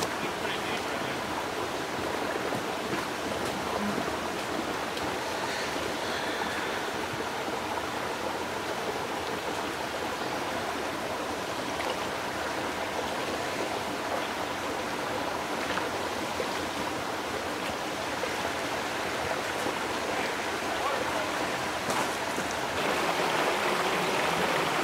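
Shallow creek running over rocks: a steady rush of flowing water, a little louder near the end.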